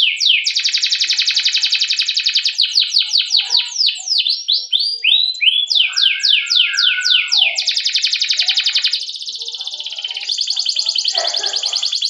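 Domestic canary singing a long song, with series of quick downward-sweeping 'cuit' notes at about four a second alternating with long, very fast rolling trills.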